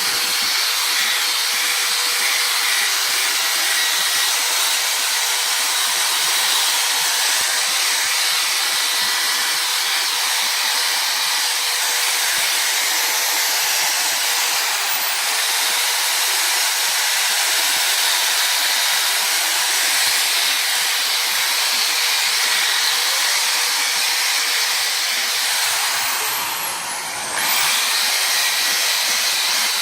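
A steady, loud rushing hiss of air, like a blower or motor-driven air tool, that dips briefly about 26 seconds in and then comes back.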